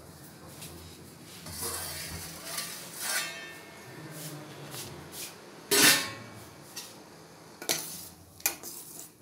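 Stainless steel plate and pot clattering and clinking as the plate used as a lid is taken off the curry pot and handled. There are several sharp clinks and one loud ringing clang about six seconds in.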